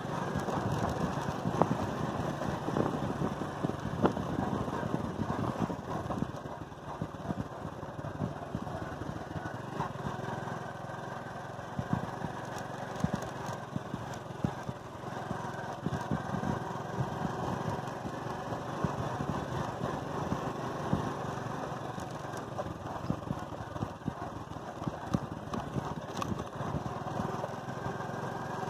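Motorcycle engine running steadily while riding along a rough dirt track, with many short knocks and jolts from the bumpy ride.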